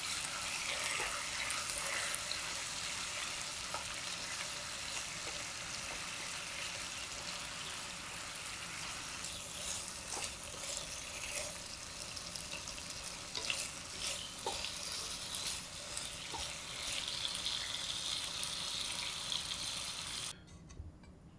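Chicken and lotus root sizzling as they are stir-fried in a frying pan, with scattered clicks of the utensil against the pan. The sizzle cuts off suddenly about a second before the end.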